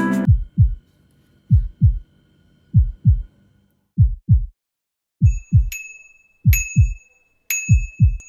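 Heartbeat sound effect: pairs of low, thudding beats, each falling in pitch, repeating about once a second. After about five seconds a high electronic chime joins and strikes three times.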